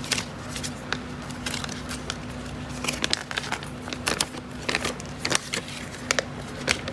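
Paper and plastic packaging crinkling and rustling in the hands, with irregular crackles and light taps as the folded game mat and wrapping are handled. A faint steady hum runs underneath.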